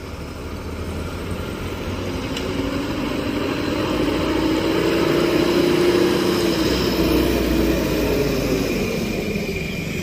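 A bus drives past on the road, its engine hum and tyre noise swelling as it approaches, loudest about six seconds in, then fading as it moves away.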